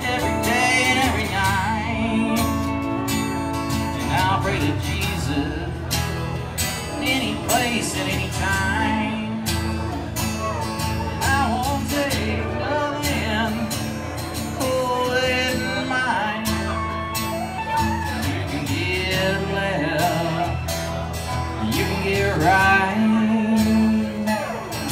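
Live amplified country music: an acoustic guitar strums the accompaniment while a pedal steel guitar plays sliding, gliding lead lines.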